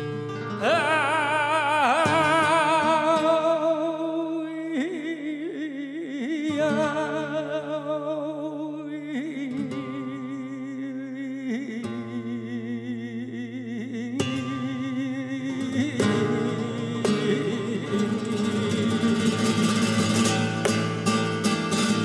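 Male flamenco cantaor singing a cante de las minas over flamenco guitar, his voice drawn out in long, wavering, ornamented phrases. About fourteen seconds in the voice falls away and the guitar carries on with strummed chords.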